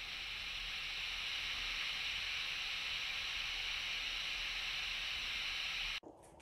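Steady hiss from a handheld voice recorder playing back its recording through its small speaker, cutting off abruptly about six seconds in when playback stops.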